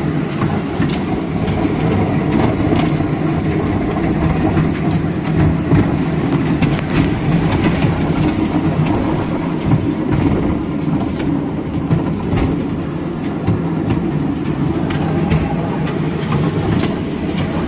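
Children's amusement-park ride train running along its small track: a loud, steady rumble of the open carriage, with frequent irregular clicks and rattles.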